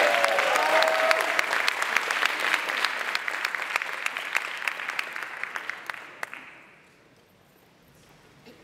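An audience applauding, the clapping thinning out and dying away over about six seconds.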